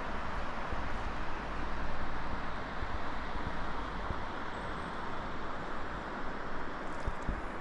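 Steady outdoor rushing hiss with a flickering low rumble of wind on the microphone, no distinct events standing out.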